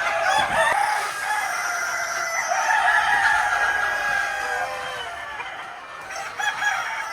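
Chickens in a poultry house: roosters crowing in long overlapping calls over the steady clucking of a flock of hens. The crowing fades out about five seconds in.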